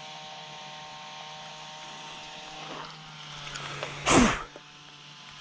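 Steady hum of the RC truck's motor cooling fans running. About four seconds in comes one short, sharp burst: a spit onto the hot motor to test how hot it is.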